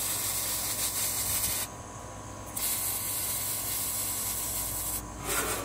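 MIG welding on steel: the arc hisses and crackles steadily, in two runs with a short break about two seconds in.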